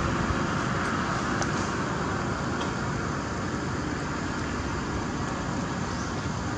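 Steady background noise: a continuous low rumble and hiss.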